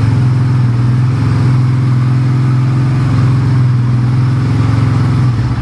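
Honda Tiger's single-cylinder four-stroke engine, fitted with a crankshaft stroked by 7 mm, running at steady raised revs, then dropping near the end to a pulsing, uneven idle.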